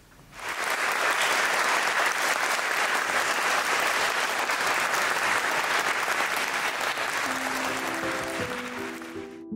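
Applause: many hands clapping, starting suddenly about half a second in and cutting off sharply near the end. Soft piano notes come in beneath the clapping in the last two seconds or so.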